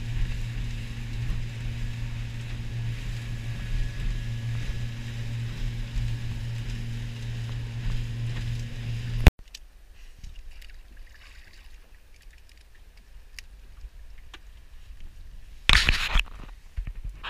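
Suzuki outboard motor running steadily at speed, heard from inside the boat's cabin with water rushing past the hull. It cuts off abruptly about nine seconds in, leaving much quieter sound with a few faint clicks and a short loud rush of noise near the end.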